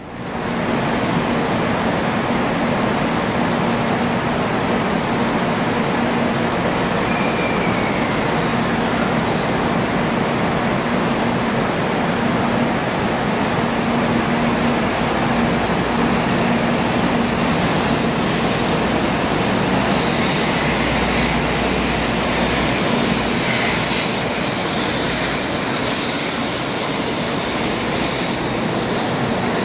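Shinkansen bullet train running past a station platform: a steady, loud rushing of wheels and air, with a faint low hum that comes and goes.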